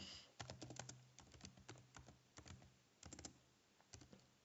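Faint typing on a computer keyboard: quick, irregular runs of key clicks with short pauses between words.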